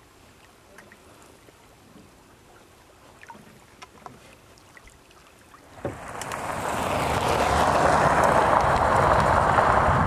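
Faint water sounds with scattered light ticks. About six seconds in, a sharp knock, then a loud steady rushing noise builds over a couple of seconds and holds.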